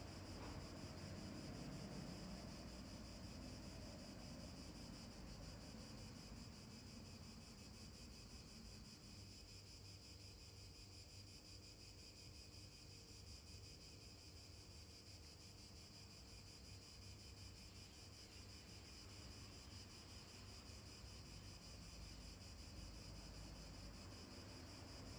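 Near silence: a faint, steady high hiss with no distinct events.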